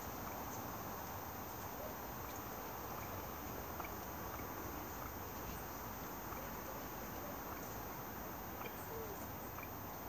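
Steady outdoor background hiss with a few faint, scattered bird chirps from the aviary birds.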